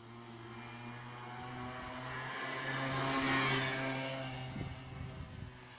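A motor vehicle's engine running, growing louder to a peak about three and a half seconds in and then fading, like a vehicle driving past.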